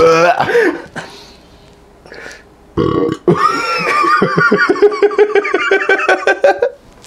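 A man belching loudly: a short rough burst about three seconds in, then one long drawn-out belch lasting some three seconds.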